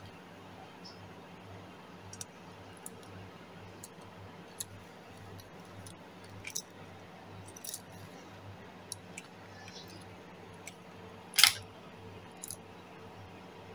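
Light clicks and clinks of small metal fishing tackle (swivels, a snap and a flat lead sinker) handled on the line, scattered through, with one louder click a little over eleven seconds in, over a steady low hum.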